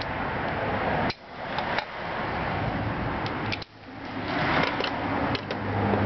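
Wrenches clinking as they are handled and fitted onto a scooter's front axle nut: several sharp metallic clicks over a steady background hiss.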